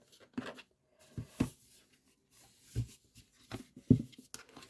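Cardboard product box being handled as it is opened: a string of light knocks, taps and scrapes, about seven in under five seconds, the loudest about four seconds in.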